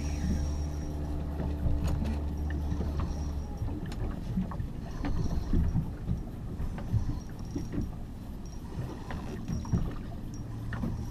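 Small motorboat at sea: a steady low motor hum stops about three and a half seconds in, leaving water slapping and knocking against the hull, with scattered clicks and creaks.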